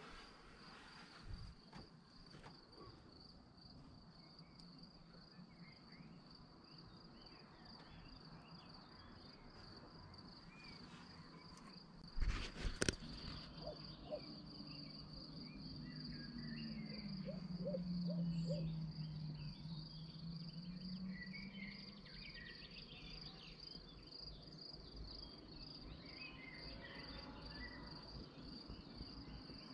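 Crickets trilling steadily at a high pitch, with scattered faint chirps. A couple of sharp knocks about twelve seconds in, and a low hum that falls in pitch, swells and fades over several seconds in the middle.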